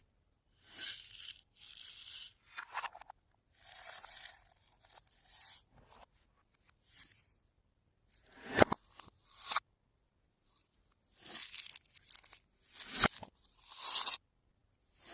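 Slime being squished and stretched by hand, in irregular bursts of sticky crackling with a few sharp pops.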